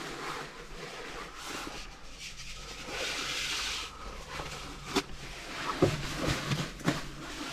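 Paper rustling and crinkling as it is spread out and tucked down, thickest about three to four seconds in, with a sharp click about five seconds in and a few light knocks after it.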